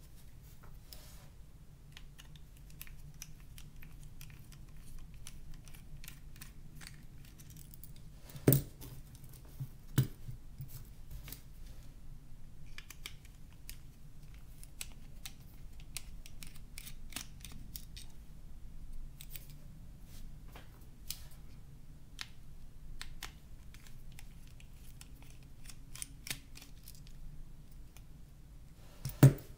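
A thin pry tool working at the plastic casing and internal frame of a Nokia N91 phone during disassembly: a run of small clicks and scrapes, with sharp snaps about eight and ten seconds in and a louder one near the end.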